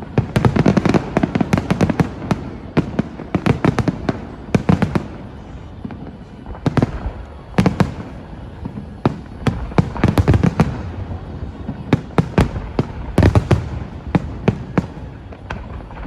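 Aerial fireworks going off in rapid volleys of sharp bangs and crackles, in dense clusters separated by brief lulls.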